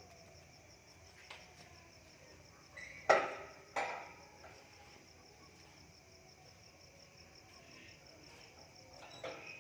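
Crickets chirping in a steady, evenly pulsing trill. About three seconds in come two sharp knocks less than a second apart, the first the loudest sound, and a fainter knock comes near the end.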